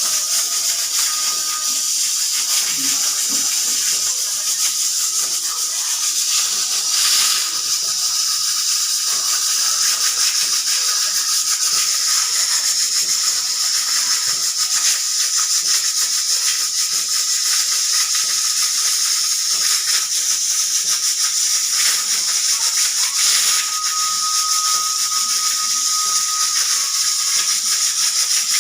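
Pressure cooker hissing steadily as steam escapes at its whistle, with a fast fine rattle and only a faint thin whistle tone instead of a proper whistle, a sign of the whistle not working properly. The faint tone grows a little stronger for about two seconds a little before the end.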